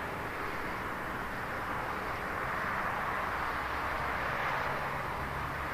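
Jet airliner engines heard at a distance: a steady rushing noise with a low hum, swelling slightly midway.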